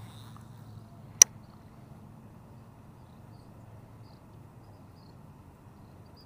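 A single sharp click about a second in, from handling of the baitcasting rod and reel, over a faint steady outdoor background.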